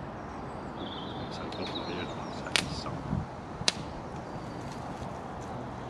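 Wood campfire catching, giving a few sharp cracks and pops, the two loudest about a second apart midway. Small woodland birds chirp faintly in the background.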